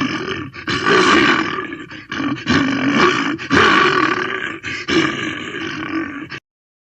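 Brown bear roaring and growling in anger: about five loud roars in quick succession, cutting off abruptly near the end.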